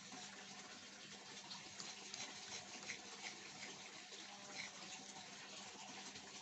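Victorinox Swiss Army knife blade being stroked on a sharpening stone: a faint, steady scraping hiss with a few slightly louder strokes in the middle.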